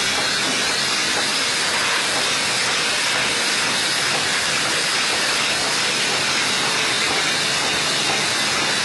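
Steady, even hiss from a running automatic bottle-cap lining machine at work.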